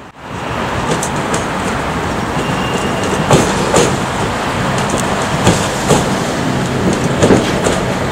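East German-built three-car HÉV suburban electric multiple unit rolling past close by over the points. Its wheels clack irregularly over the rail joints and switches above a steady low running rumble and hum.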